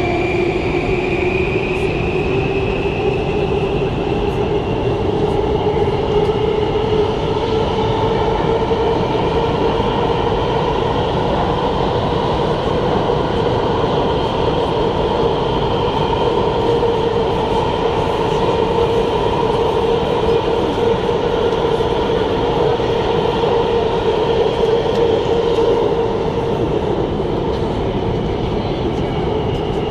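Singapore Circle Line C830 metro train running between stations, its traction motor whining over a steady rumble of the wheels. The whine rises in pitch over the first several seconds, holds steady, and eases down slightly near the end. It is an unusual motor sound for this train set.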